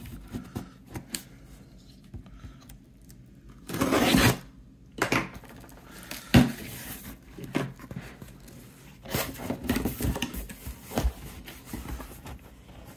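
A utility knife cutting the packing tape on a cardboard shipping box, then the box being handled and opened: scattered scrapes, clicks and cardboard rustles. The loudest is a rasp of under a second about four seconds in.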